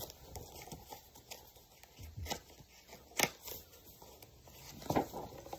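Faint paper rustling and light handling clicks as a picture book's page is turned and the book and phone are moved about, with one sharper click about three seconds in and a short rustle near the end.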